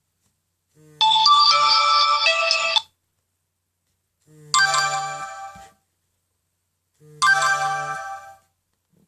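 Nokia N97 Mini sounding one of its stock ringtones with the vibration alert on. Three short melodic phrases about three seconds apart, each one opened by a brief low buzz of the vibration motor. The first phrase is the longest, and the later two fade as they go.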